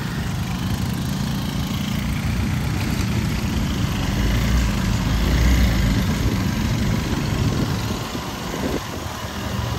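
Motorcycle engine running steadily under way on a rough unpaved road, its low rumble swelling a little about halfway through.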